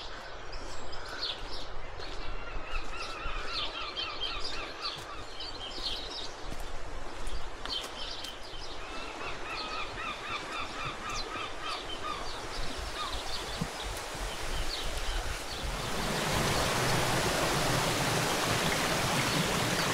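Birds calling in repeated short series of notes over a background hiss, then from about 16 seconds in a steady rush of water grows louder and takes over.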